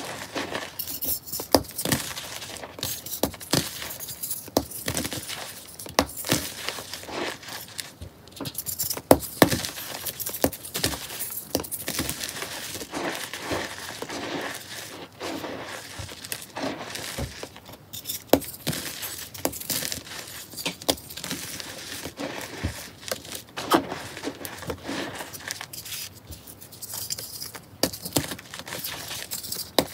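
Hands crushing and crumbling blue-dyed chalk blocks in loose chalk powder: a steady run of irregular crunches and crackles with soft, powdery squeezing, and a few sharper snaps as pieces break.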